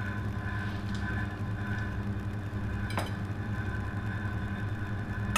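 A steady low machine hum with a few even tones, like a kitchen's ventilation or refrigeration running, and one light click about three seconds in.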